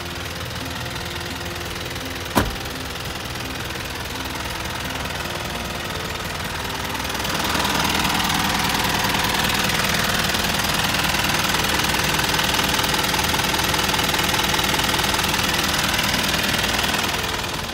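Toyota Dyna truck engine idling steadily, growing louder and brighter about seven seconds in and easing off near the end. A single sharp click about two seconds in.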